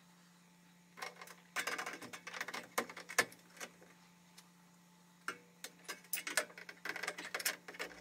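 Irregular clicks, taps and light knocks of a T8 LED tube being handled and seated into a ceiling fluorescent fixture's sockets. They come in two spells, one from about a second in and another from about five seconds in.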